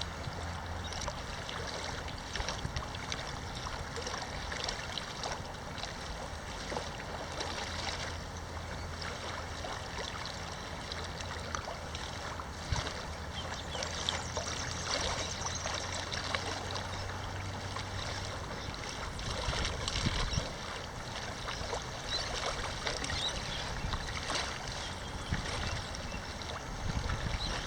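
Water splashing and trickling as a touring kayak is paddled, with small irregular splashes from the paddle blades dipping in and out.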